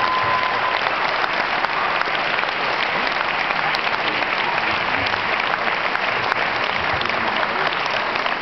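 Large audience applauding steadily, a dense crowd of clapping hands.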